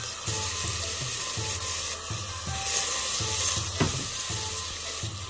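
Diced onions sizzling steadily in hot oil in a stainless steel pot as dry bulgur is poured in and stirred with a wooden spoon.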